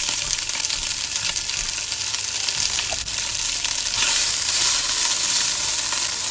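Green curry paste sizzling as it fries in hot oil in a pan, the sizzle growing louder about four seconds in.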